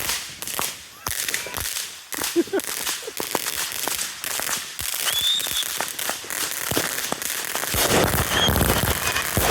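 Fireworks going off: an irregular series of sharp pops and crackles that grows denser and louder near the end.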